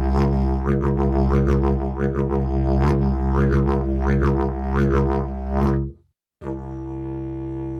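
Didgeridoo drone with rhythmic shifts in tone about twice a second. About six seconds in it cuts off sharply, and after a brief gap a quieter, steady drone begins.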